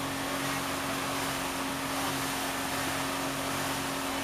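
Motorboat engine running at a steady speed, a constant low hum that holds one pitch, with a hiss of water and wind over it.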